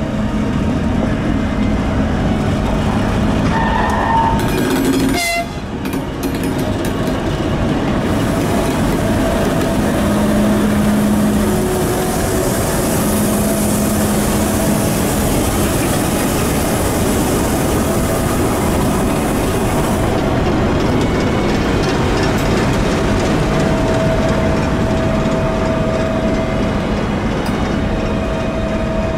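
A train running, with loud steady rolling noise throughout and an abrupt break in the sound about five seconds in.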